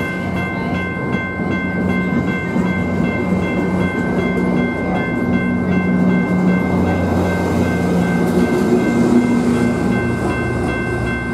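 Diesel train running close by, its low engine note shifting about halfway through, with a steady high-pitched whine over it.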